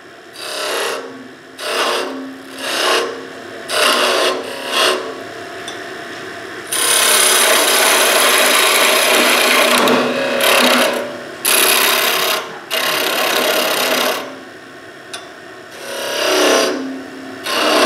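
Skew chisel cutting into wood spinning on a lathe, shaping a wooden egg into a lopsided bead. First come several short cuts of about a second each, then a long continuous cut lasting several seconds with brief breaks, then a few more short cuts near the end.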